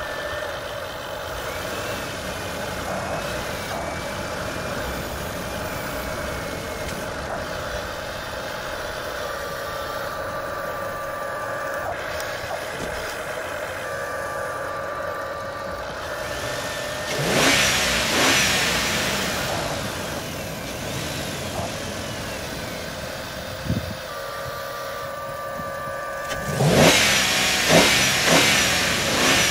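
Electric motors and gearboxes of Huina 1593 RC excavators whining steadily as the arm, boom and bucket move, the pitch shifting as the motors change speed. There are two louder spells, about halfway and near the end, as sand and gravel pour from the bucket into a toy dump truck.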